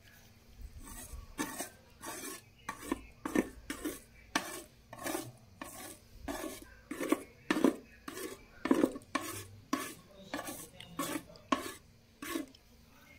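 Flat scraper blade scraping blistered, stripper-lifted paint off a Yezdi motorcycle's louvred metal side panel, in repeated short strokes about two or three a second.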